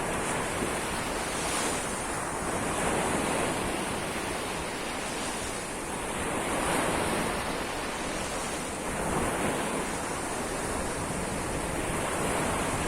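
Sea waves breaking and washing ashore: a continuous rush of surf that swells and ebbs every two to three seconds.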